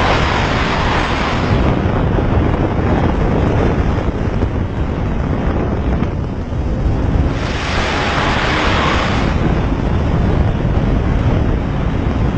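Wind buffeting the microphone of a fast-moving motorcycle, over a steady rumble of engine and road noise. The wind rush swells twice, near the start and again about two-thirds of the way through.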